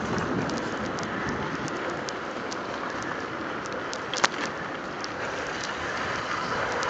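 Mountain bike rolling over a wet street: steady tyre hiss with scattered small clicks and rattles, and one sharp knock about four seconds in.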